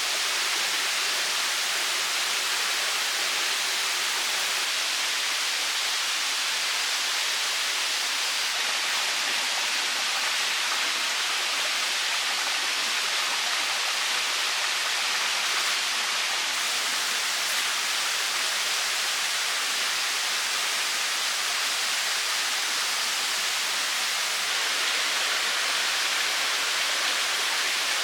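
Running water, a steady even rush that holds unchanged throughout.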